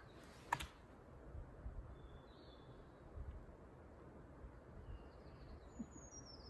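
A sharp click about half a second in, then faint, short, high bird chirps scattered through the forest quiet, ending in a couple of quick falling chirps, over a low steady background rumble.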